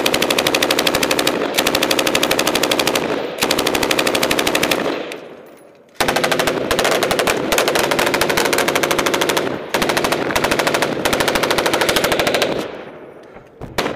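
Belt-fed machine gun firing close by in several long bursts of rapid automatic fire, with a lull of about a second midway before the firing resumes.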